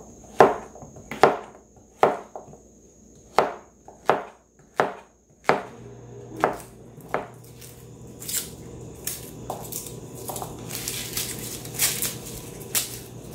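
Chef's knife slicing zucchini, the blade knocking on a cutting board about once or twice a second. In the later part, a papery crackling as garlic cloves are peeled of their skins.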